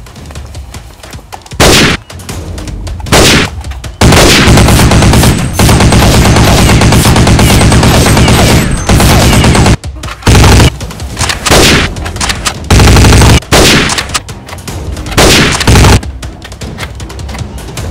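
Rapid automatic gunfire sound effects in bursts: one long unbroken burst from about four seconds in to nearly ten seconds, then several short bursts over the following six seconds.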